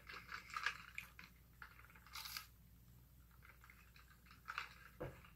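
Faint, irregular chewing and mouth sounds of someone eating fried chicken nuggets close to the microphone, with a soft low thud near the end.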